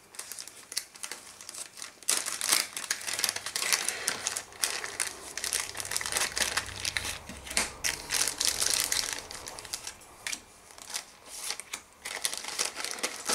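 Clear plastic wrapping crinkling and rustling in irregular crackles as game cards and a cardboard token sheet are pulled out of it and handled.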